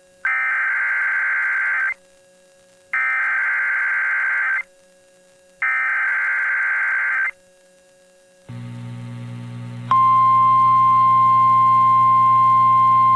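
Three bursts of EAS SAME header data, a harsh digital warble about one and a half seconds each with a second's gap between them. About eight and a half seconds in, receiver hiss and hum come up. About ten seconds in, the NOAA Weather Radio 1050 Hz alert tone starts and holds steady.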